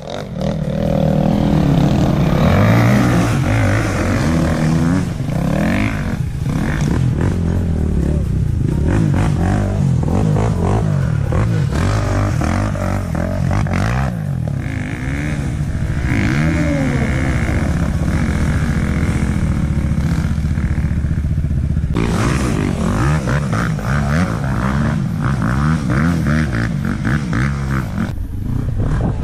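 Dirt bike engines revving hard on a muddy climb, the pitch rising and falling with the throttle as the bikes pull through the mud.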